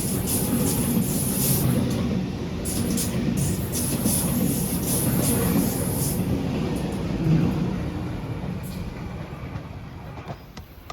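Sydney suburban electric train moving through the station: a steady heavy rumble with a high hiss that comes and goes over it. The noise dies away over the last few seconds as the train leaves.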